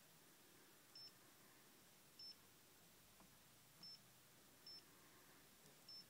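Alpine touchscreen car head unit giving short, high key-press beeps as its on-screen buttons are touched, five in about six seconds at uneven intervals; each beep confirms a touch.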